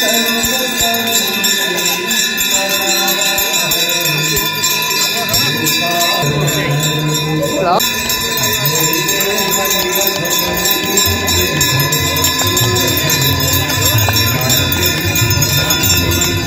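Many bells ringing at once in a dense, steady jangle, with a low hum that grows stronger in the second half.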